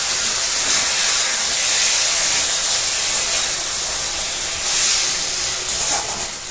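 Spice masala sizzling in hot oil in a pan: a steady hiss that swells briefly about five seconds in.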